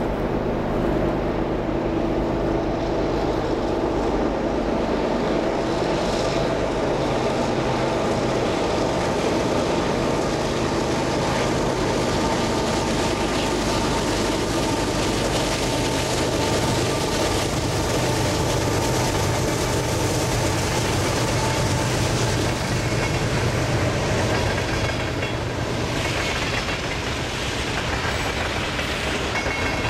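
A freight train passing: two diesel locomotives pull by with their engines running, followed by a long string of covered hopper cars rolling past on the rails. The sound is steady and loud throughout.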